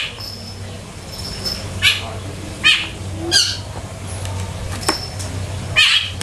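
A rooster pecking and scratching right by the microphone: about five short, sharp taps scattered over the few seconds, with a few brief high chirps and a low steady hum underneath.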